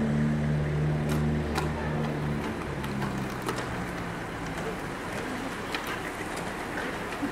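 A bunch of racing bicycles sweeping past on wet asphalt, with tyre hiss and scattered light clicks from the bikes. A steady engine hum is under it for the first few seconds, then fades.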